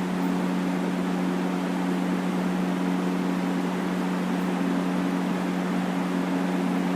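Steady machine hum over an even hiss, unchanging in pitch and level.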